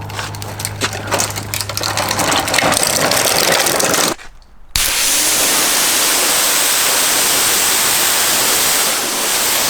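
A small electric pressure washer motor humming under clattering and clicks. After a brief break, a steady, loud hiss of water spraying under pressure.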